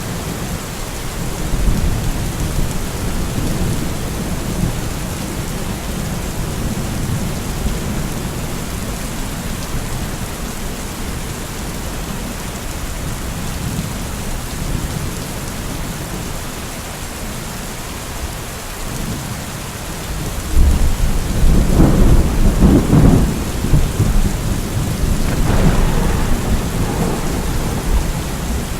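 Steady heavy rain with thunder: a low rumble under the rain that swells into a loud roll of thunder about three-quarters of the way through, with cracks in it.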